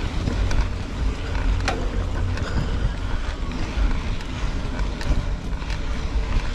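Wind buffeting the camera's microphone as a mountain bike rides fast along a dirt road, with tyre noise and scattered clicks and knocks as the bike jolts over the ground.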